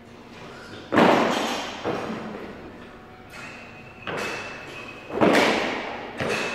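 A run of heavy thuds from gym equipment dropped on the floor, five in about six seconds, each echoing on in the large hall. The loudest come about a second in and near the end.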